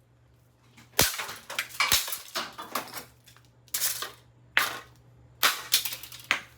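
Sharp clacks and knocks of the hard plastic casing and parts of a smashed RCA RC142 clock radio being handled and dropped: about seven irregular knocks, starting about a second in.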